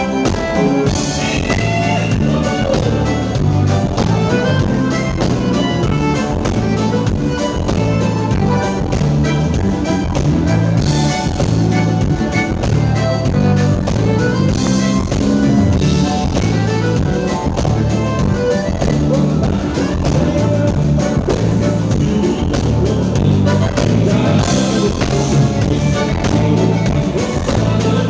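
A band playing music with a steady beat and a repeating bass line, with little or no singing.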